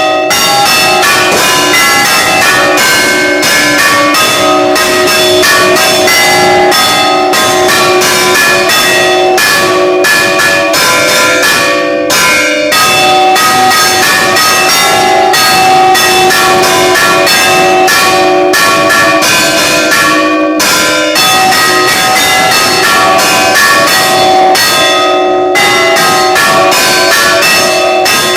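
Church bell ringing in rapid, continuous strikes, several a second, each ringing on into the next, with two brief breaks in the strokes.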